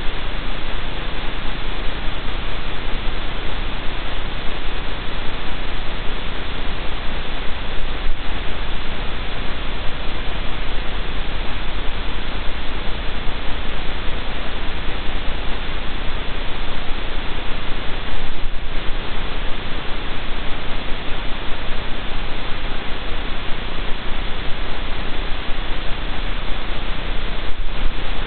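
Steady, even hiss of static from the live den camera's audio feed, with a low hum beneath it.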